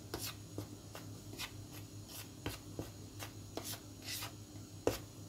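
Fingers stirring a dry flour and cornstarch mix in a bowl: short, scratchy rubbing strokes, two or three a second, with one sharper tap just before the end.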